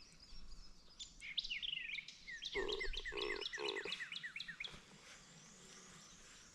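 Several songbirds singing, with quick high chirps and descending notes in rapid series. Three short, lower, harsh calls come near the middle.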